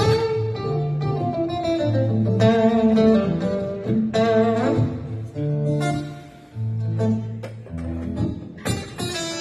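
Acoustic guitar played live as an instrumental: a run of picked notes and chords, with low bass notes ringing under them.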